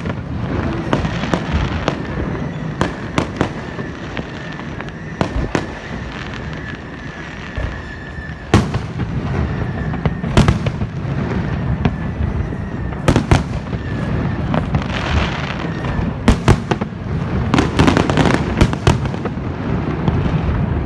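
Fireworks display: a steady run of sharp bangs and crackles over a continuous hiss, the loudest bangs in the second half. A thin, steady whistling tone runs through the first half.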